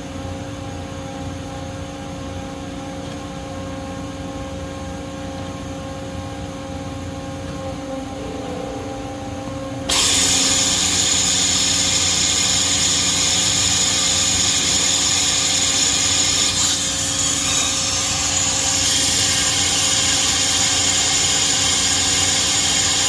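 Toshiba MPC-2565A gantry CNC machining center running with a steady hum and a few fixed tones. About ten seconds in, a loud hiss with a high steady whine starts suddenly and holds.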